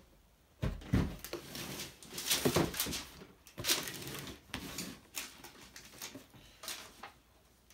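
Cardboard box being handled on a table: a string of short scuffs and knocks as the lifted-off lid is set down and the box is moved, then paper rustling as the instruction sheet is pulled out near the end.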